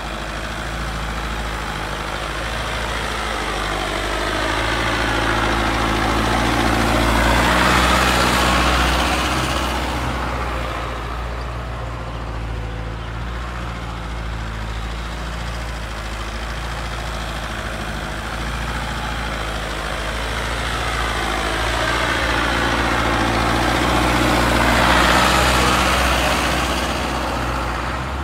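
Mahindra 605 DI Arjun Novo diesel tractor engine running under load as it drags a weighted tine harrow through loose soil. The sound swells twice as the tractor comes round its circle, loudest about eight seconds in and again near the end.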